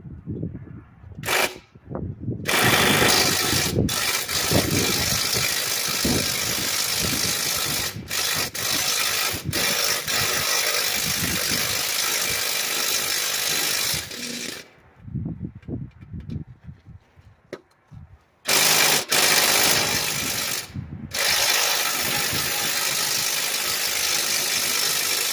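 A power tool running hard on a stuck lawn mower bolt: a short burst, a long run of about twelve seconds, then after a pause two more runs, the last stopping abruptly.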